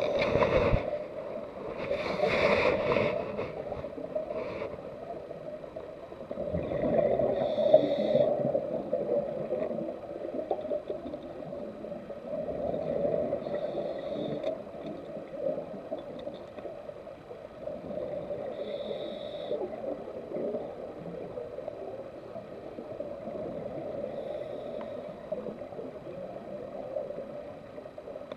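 Diver's scuba breathing heard underwater: a regulator hiss and a gurgle of exhaled bubbles that come back every five to six seconds, loudest in the first few seconds, over a steady hum.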